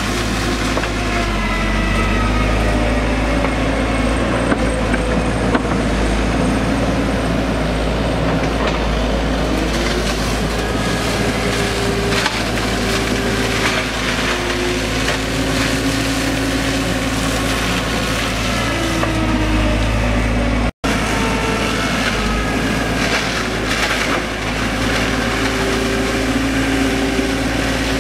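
Rolmex flail mulching head on an excavator, its rotor shredding brush and grass, over the machine's steady drone, whose tones waver in pitch as it works. The sound cuts out for an instant about three quarters of the way through.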